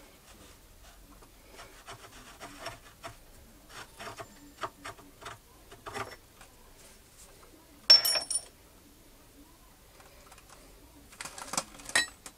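Metal parts of a Brierley drill grinder being handled: light taps, rubs and clicks, then a sharp metallic clink with a short ring about eight seconds in. A few more knocks come near the end as the chuck head is gripped.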